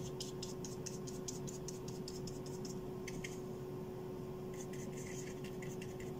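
Faint, quick scratchy strokes of a semi-dry paintbrush flicking gouache onto paper, about five a second at first, then a few sparser scrapes later on, over a steady low hum.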